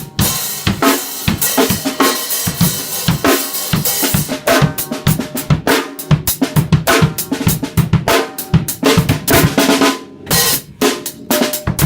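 Acoustic drum kit played in a recording studio: kick, snare and toms struck in fast, busy patterns under ringing cymbals, with a short break about ten seconds in. The kick drum and toms are not specially tuned.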